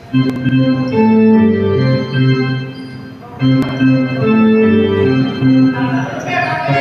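Organ music: held chords in a short repeating phrase. It breaks off briefly a little under three seconds in, then starts again.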